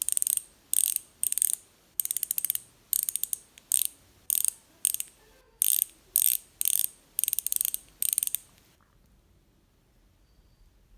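MOB KMX95RL single-speed rear hub's freewheel ratchet clicking: short bursts of rapid ticks, about two bursts a second, that stop about three quarters of the way through.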